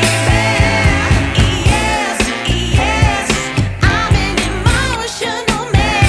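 Background pop song: a singing voice over a steady beat and bass.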